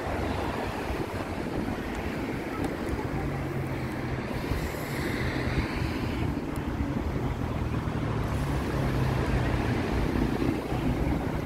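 Steady wind buffeting the microphone, with the rush of surf breaking on the beach underneath.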